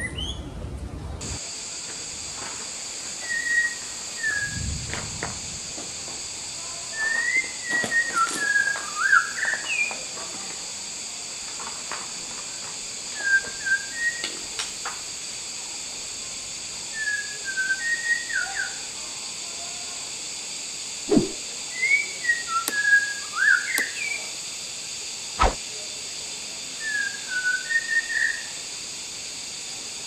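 A songbird singing short whistled, warbling phrases in bursts every few seconds, over a steady high-pitched hiss. Two sharp clicks come in the second half.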